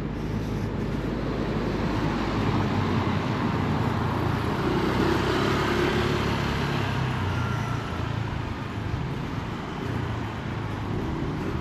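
A motor vehicle on a city street: engine hum and road noise swell over a few seconds as it passes close, then ease off.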